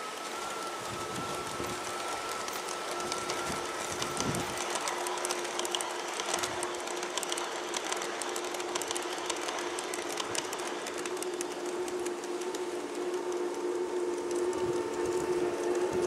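LGB G-scale model electric trains running on garden track: a steady motor hum with wheels clicking over the rails. It grows louder near the end as a locomotive comes close.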